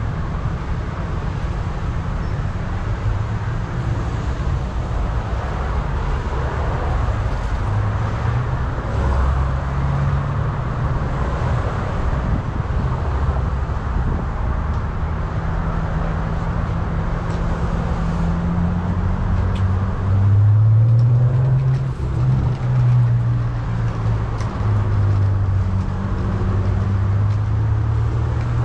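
Street traffic noise with motor vehicle engines running. An engine note rises and grows louder about two-thirds of the way through, as a vehicle passes or pulls away.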